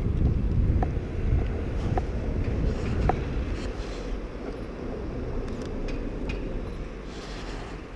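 Wind buffeting a GoPro's microphone while the wearer walks, a steady low rumble that is strongest in the first few seconds and then eases, with faint regular ticks about once a second early on.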